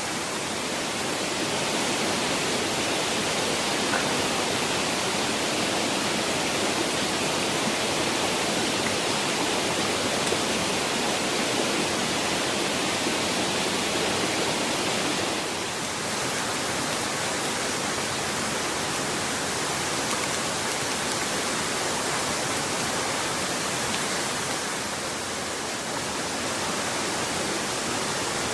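Steady rushing of a mountain stream, an even wash of water noise with no distinct events; it dips slightly in level about halfway through and again near the end.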